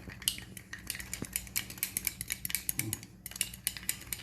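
Utensils clicking and scraping against dishes in a quick, uneven run of small clinks.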